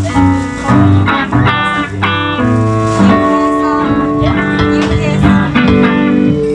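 Live rock band playing: electric guitars, drums and keyboard in loud, sustained chords. The music stops right at the end and fades away.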